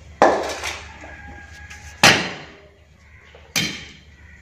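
Three sharp knocks about a second and a half apart, each fading quickly.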